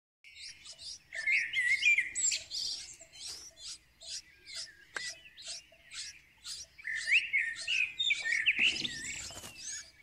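Songbird nestlings begging in the nest: short, high chirps repeating about twice a second, with louder bouts of lower chirping about a second in and again from about seven to nine seconds in.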